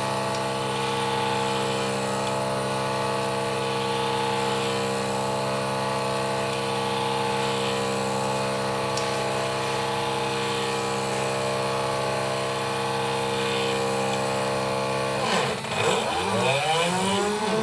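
Homemade CNC engraving machine running with a steady whine. About 15 seconds in the pitch swoops down and climbs back up, settling at a new steady tone, as the machine changes speed.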